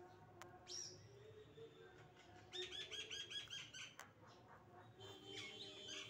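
Rose-ringed (Indian ringneck) parakeet calling: a short high call about a second in, then a rapid run of chirps, about seven a second, lasting about a second midway, with a few more calls near the end.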